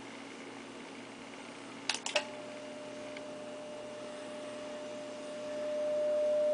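Two sharp clicks as the transmitter is keyed, then a steady single-pitched tone while the radio sends a carrier into the KL500 linear amplifier, the tone growing louder near the end. A low steady hum runs underneath.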